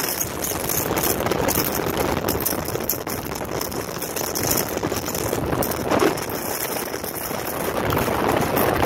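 Strong wind from a tornado touching down close by, rushing steadily and buffeting the phone's microphone.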